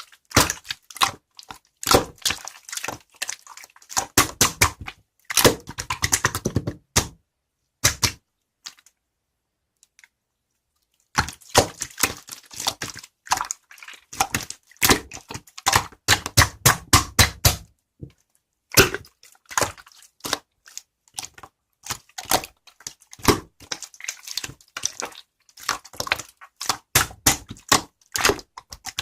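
Clear crystal slime being pressed and squished by hand, giving dense runs of small clicks and pops. The clicking stops for about three seconds a little past eight seconds in, then starts again.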